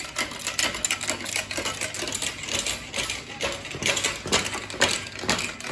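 Quick, irregular metallic clicking and ratcheting from a hand-worked ratchet mechanism.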